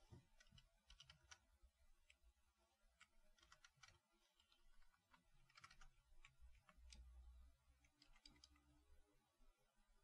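Faint computer keyboard typing: scattered key clicks, some singly and some in short quick runs.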